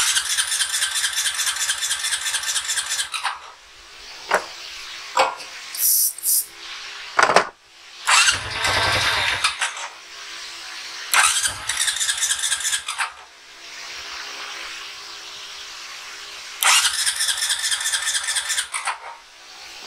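Honda Rancher 350 ATV's single-cylinder four-stroke engine being cranked over on its starter in three bursts of two to three seconds each, with a pulse to each burst; a shorter, deeper sound comes between the second and third tries, about eight seconds in.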